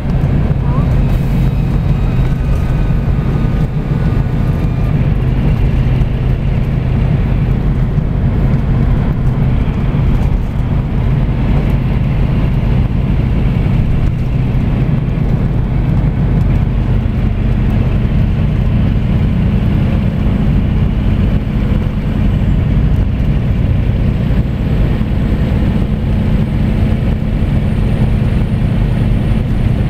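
Scania coach's diesel engine and drivetrain heard from a seat near the rear of the passenger cabin: a steady low drone with road noise while cruising.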